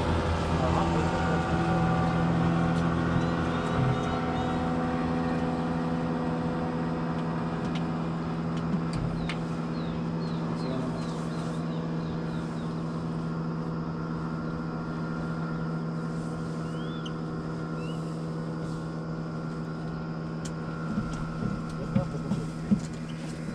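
Boat motor running with a steady low hum of several held tones, slowly fading. A few short high chirps come through, and there are some sharp clicks near the end.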